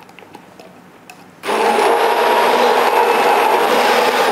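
Electric hand blender puréeing strawberries in a plastic beaker. After about a second and a half of near stillness with a few faint taps, the motor switches on and runs steadily at one pitch, stopping briefly right at the end.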